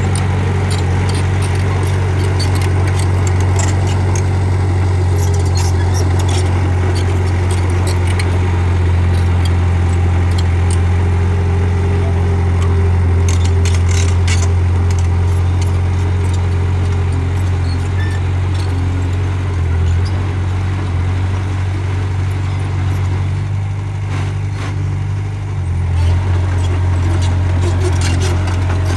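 Bulldozer's diesel engine running steadily under work, with scattered metallic clanks and rattles; the engine note shifts slightly near the end.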